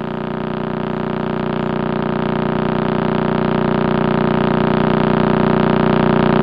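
A sustained electronic drone of many held tones, swelling steadily louder without changing pitch.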